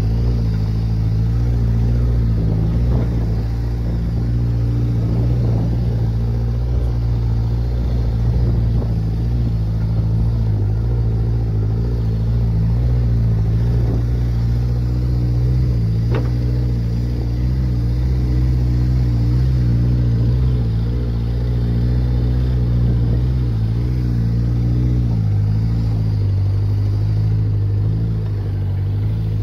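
Vehicle engine running steadily, a low, even drone with small changes in pitch.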